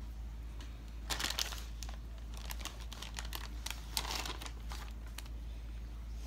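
Plastic packaging crinkling in two dense flurries, about a second in and again around four seconds, with scattered crackles between, as deli ham slices are peeled off and laid over meat in a glass baking dish. A low steady hum runs underneath.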